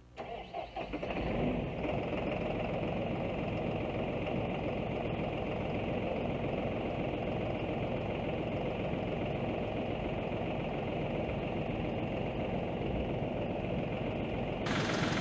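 New Holland tractor engine cranking and catching, with uneven surges for about a second and a half, then idling steadily. A hiss joins near the end.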